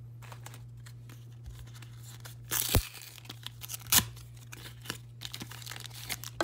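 Foil booster-pack wrapper crinkling and tearing open, with two sharp louder rips about two and a half and four seconds in.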